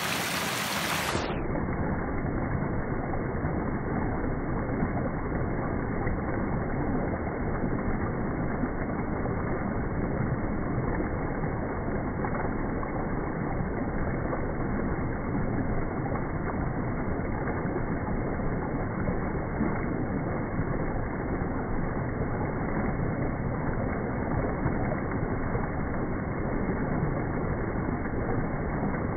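Small woodland creek spilling over a log into a pool: steady rushing, splashing water.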